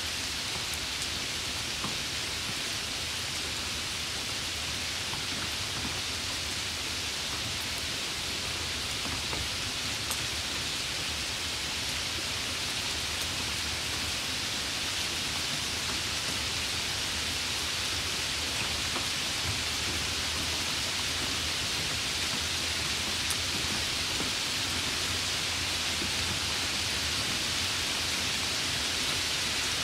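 Steady rain falling, an even hiss that holds the same level throughout, with a few faint drop ticks.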